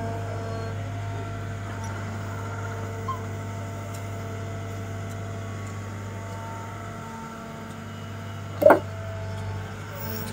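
Cat M314 wheeled excavator's diesel engine and hydraulics running steadily as its grapple swings a concrete curb. About eight and a half seconds in, one sharp knock as the curb is set down onto a stack of curbs.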